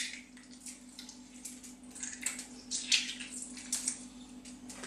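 A lemon squeezed by hand, its juice dripping and spattering onto aluminium foil in irregular small wet ticks, over a steady low hum.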